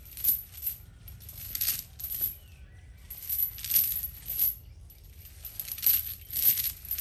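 Irregular bursts of high-pitched metallic jingling and rattling, a few short clusters with gaps between them, the longest in the middle and near the end.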